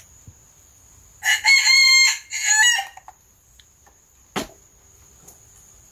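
Rooster crowing once, about a second in, a high call under two seconds long with a short break near its end. A steady high insect chirr runs underneath, and a single sharp knock comes a little after the crow.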